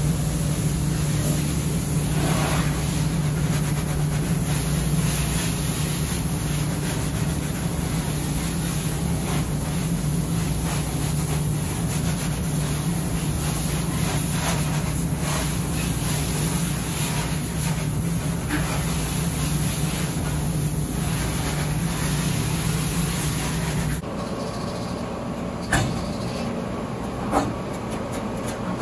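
Steady drone of running laundry-room machinery, with a strong low hum. The drone drops away abruptly near the end, where two short metallic knocks come from the stainless lint-filter cone being handled.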